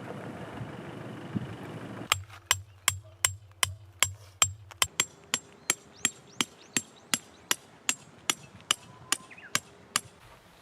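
Wind noise, then from about two seconds in a steady run of sharp hammer strikes, about two and a half a second, for some eight seconds, as of a stake being hammered into the ground.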